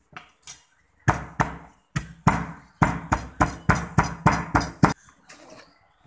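Wooden pestle pounding chilies and garlic in a clay mortar: a quick run of dull knocks, about three to four a second, stopping about a second before the end.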